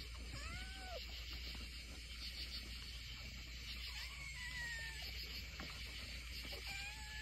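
Kittens meowing: three drawn-out meows a few seconds apart, each rising and then falling in pitch.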